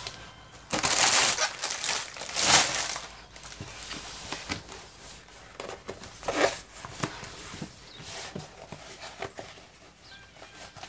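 Clear plastic cover film on a rolled diamond-painting canvas crinkling and rustling as hands unroll it and smooth it flat. The strongest bursts come about one and two and a half seconds in, another near the middle, with softer crackles between.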